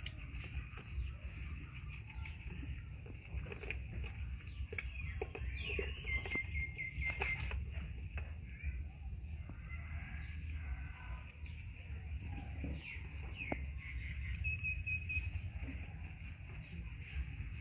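Steady high whine with short chirps repeating about once a second, plus a couple of brief higher calls. Under it come scattered wet rubbing and splashing sounds as a baby macaque is washed with soapy water.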